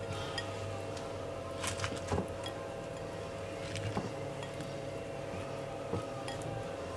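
A steady hum with a few short taps and clicks as slices of fried sweet potato are laid by hand onto a bowl of salad.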